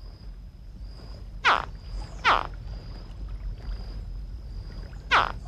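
Juvenile alligators chirping: three short, high calls that each fall steeply in pitch, two close together and a third near the end. Under them run a faint steady high tone and a low rumble.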